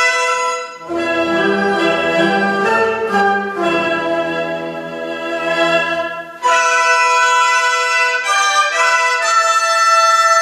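Chinese traditional orchestra playing held chords. About a second in, the music drops to a lower, fuller passage. About six and a half seconds in, it switches abruptly back to bright, high sustained chords.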